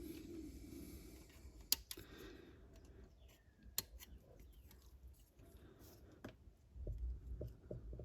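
Sprue cutters snipping a plastic model part off its sprue: a few sharp clicks, the two loudest about two seconds apart, with faint handling noise between.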